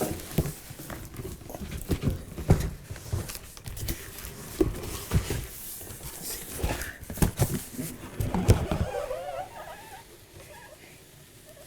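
Cardboard box and packaging being pulled open and handled: irregular rustling, scraping and light knocks, dying down near the end.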